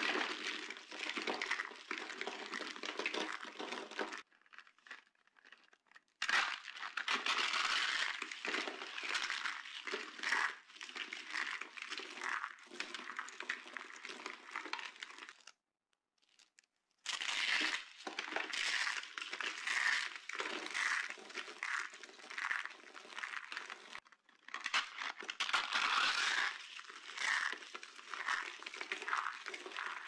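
Dry, brittle soap flakes and shards crushed and crumbled between the hands: a dense crunching and crinkling that comes in several stretches, split by short breaks.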